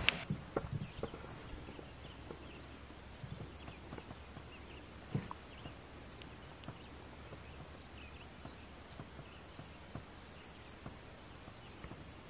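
Quiet open-water ambience from a drifting canoe: a low hiss with scattered faint clicks and small knocks, one a little louder about five seconds in, and a brief high chirp about ten seconds in.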